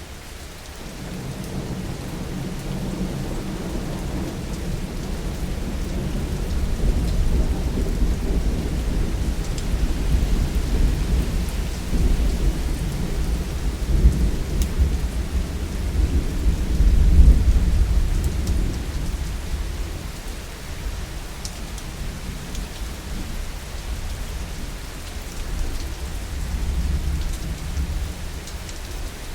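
Heavy rain falling steadily while a long, low roll of thunder builds, peaks about halfway through and slowly fades, with a smaller rumble again near the end.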